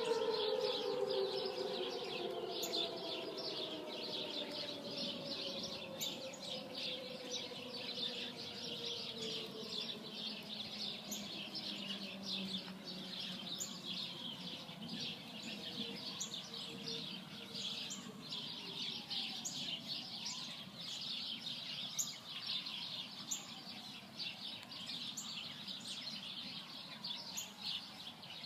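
Outdoor tornado warning sirens winding down: the pitch falls and fades away over roughly the first ten seconds, and fainter distant sirens slide up and down in pitch later on. Birds chirp steadily throughout.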